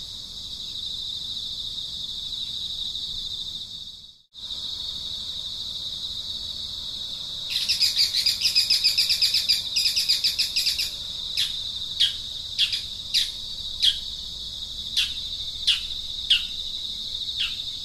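Steady high-pitched insect drone, cutting out briefly about four seconds in. Midway a bird breaks into a rapid run of chirps for about three seconds, then gives a series of short downward-sliding call notes, one every half second to second.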